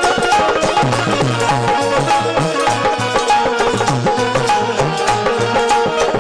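Live Indian folk music: a dholak hand drum played in a fast, steady rhythm, its bass strokes bending in pitch, over a sustained melodic accompaniment.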